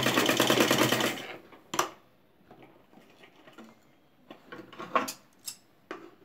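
Domestic sewing machine running fast, stitching down the pleats of a cloth face mask, then stopping about a second in. A single sharp click follows, then faint handling sounds as the cloth is taken out.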